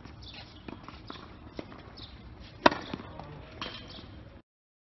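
A tennis ball struck hard by a racket: one sharp, loud pop about two and a half seconds in, after a few fainter ball knocks on the hard court. The sound cuts off abruptly near the end.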